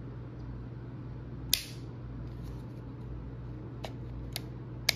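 Sharp click of a disassembled Glock 19 frame being handled, about a second and a half in, then three fainter clicks near the end, over a steady low hum.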